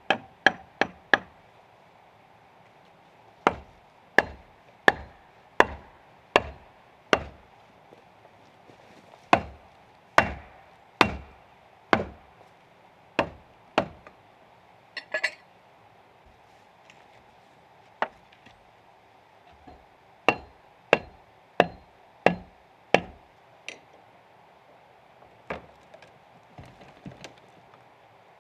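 Axe chopping into a timber log: sharp single strikes, about one every three-quarters of a second, in runs with short pauses between them.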